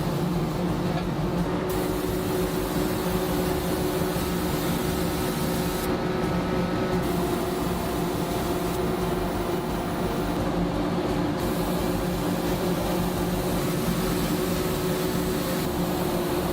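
Steady mechanical drone, like industrial machinery running: a constant hum with a few held low tones that does not change.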